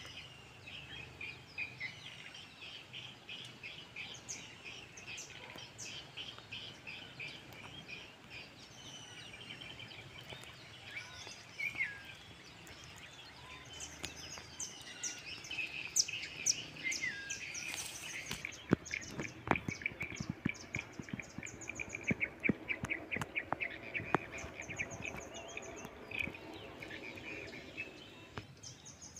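Outdoor ambience of several birds chirping and calling, with rapid trains of high chirps from about halfway on. A scatter of sharp clicks sounds in the second half.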